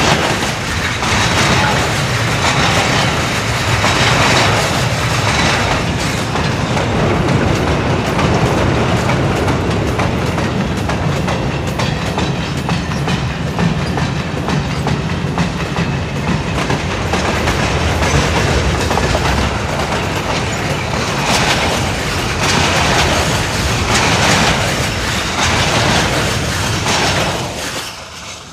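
Freight train of boxcars rolling past, loud, its steel wheels clattering over the rail joints in a repeating rhythm. The sound falls away quickly near the end as the last wagon goes by.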